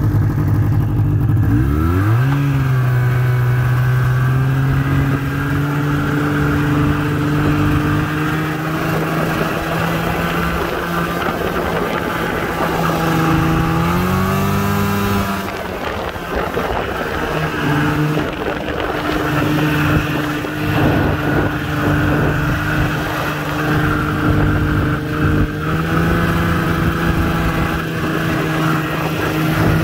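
Snowmobile engine running as the sled travels. Its pitch climbs about two seconds in and then holds steady. Near the middle it rises and falls again and drops off for a couple of seconds before picking back up.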